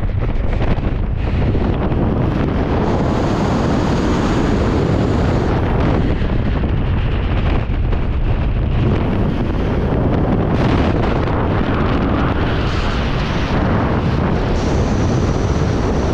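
Wind rushing over the camera microphone while flying under an open ram-air parachute canopy: a loud, steady rush that swells and eases a few times.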